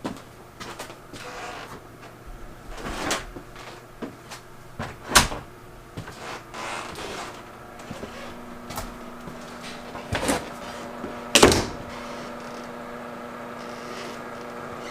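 Household knocks and bumps of doors and cupboards opening and closing, a handful of sharp ones, the loudest about five seconds in and again near eleven seconds. A steady appliance hum starts about eight seconds in.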